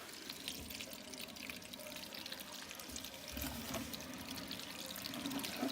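Water from a furnace's condensate drain pan running out of a siphon tube into a container, trickling and splashing steadily, a little stronger about three seconds in.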